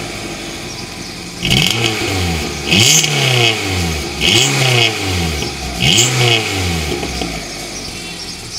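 Hyundai i10's 1.1-litre four-cylinder engine heard at the tailpipe: idling, then blipped four times in quick succession, each rev rising and falling in pitch, before settling back to a steady idle.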